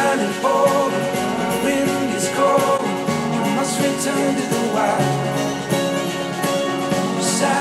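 A song with guitar and a singing voice, played through studio monitors and recorded by a microphone in the room. Partway through, the playback switches from a pair of Yamaha HS8 monitors to a pair of JBL 306P MKII monitors.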